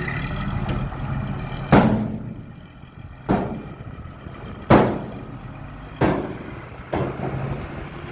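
Heavy earthmoving machinery's diesel engine running steadily, cut by five sharp bangs spaced about a second to a second and a half apart.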